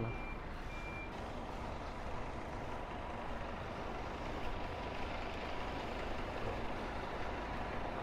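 A high electronic beeper sounding in a steady on-off pattern, a little under two beeps a second, stopping about a second in; steady outdoor background noise continues underneath.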